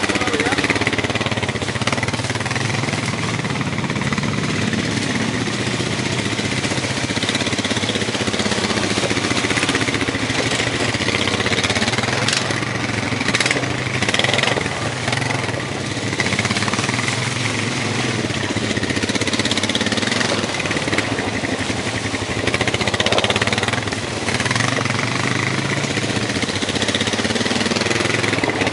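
Four-wheel-drive ATV engine running while being ridden, its pitch rising and falling with the throttle.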